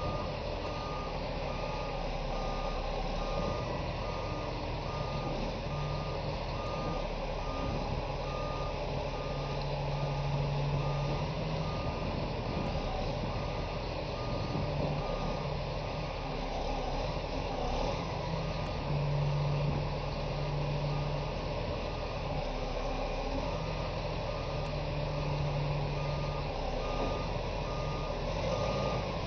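Heavy-machine reversing alarm beeping in an even, unbroken rhythm over the steady running of a large diesel machine.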